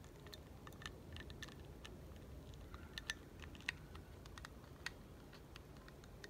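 Faint, irregular clicks and taps of a McDonald's Happy Meal toy's pieces being handled and fitted together: a Scooby-Doo-printed tube pushed onto an Aquaman card figure, with a few sharper clicks around the middle.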